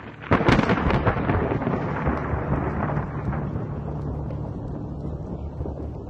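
A sudden loud crash about a third of a second in, crackling at first and then rumbling away over several seconds, over a steady low drone.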